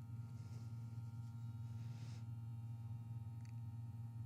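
Low, steady electrical hum, with faint soft rustles about half a second and two seconds in.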